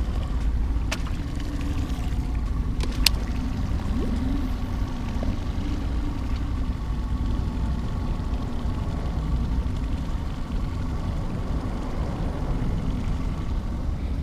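Steady low mechanical drone with a faint hum, with a few sharp clicks in the first three seconds.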